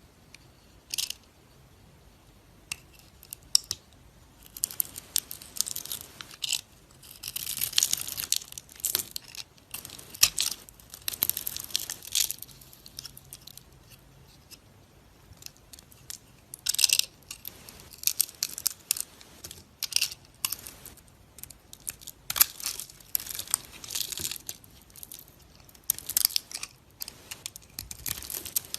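Close-miked ASMR crunching and crackling in irregular, crisp bursts, with a few sharp ticks in the first seconds.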